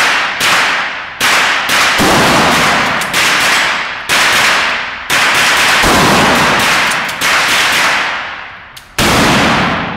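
Pump-action shotgun fired repeatedly, a string of loud shots roughly a second apart, each ringing out in a long echo off the walls of an indoor range.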